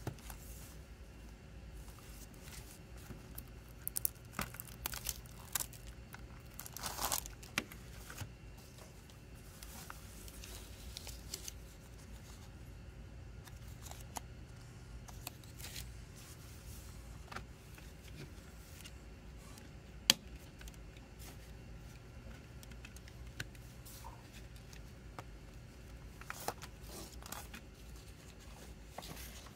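Cellophane shrink wrap being torn and crinkled off a plastic CD jewel case, with bursts of crackling about four to eight seconds in, then quieter handling of the case and its paper obi strip. A single sharp plastic click comes about twenty seconds in as the jewel case is handled open.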